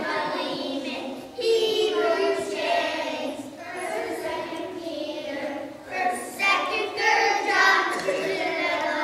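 A group of young children singing together as a choir, in phrases with short breaths between them.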